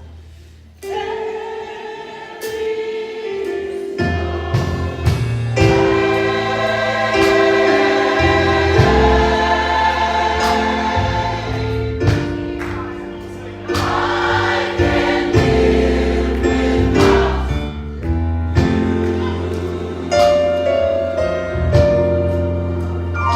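A choir singing a gospel song in harmony with instrumental accompaniment, coming in about a second in after a brief quiet moment.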